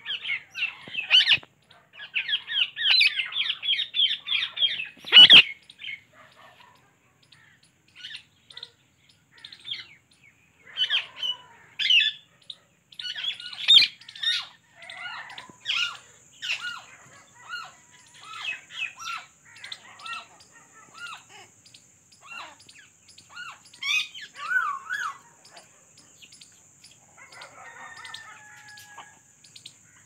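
Birds chirping: a dense run of quick chirps for the first few seconds, then scattered short chirps and whistles. A single sharp knock comes about five seconds in, and a faint steady high whine joins about halfway.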